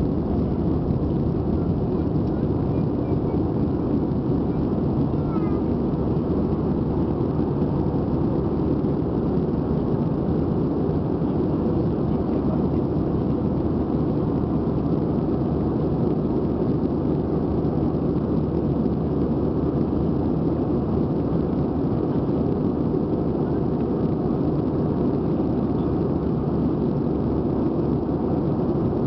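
Steady, deep cabin noise of an Airbus A320 in flight after takeoff: its jet engines running and air rushing past the fuselage, heard from a window seat over the wing.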